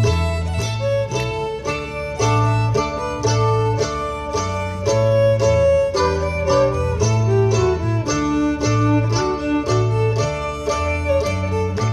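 Live fiddle tune: a fiddle plays the melody over strummed acoustic guitar and piano, with a steady alternating bass underneath.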